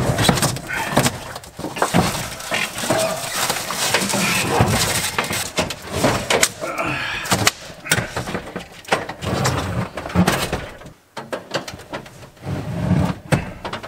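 A window air conditioner being taken out of its wall opening: its plastic front panel is pried off, then the unit is dragged and lifted out. The sound is a busy run of plastic clatters, scrapes and knocks, with a brief lull near the end.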